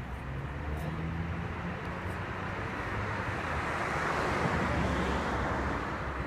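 A vehicle passing, its noise swelling to a peak about four to five seconds in and then fading, over a steady low hum.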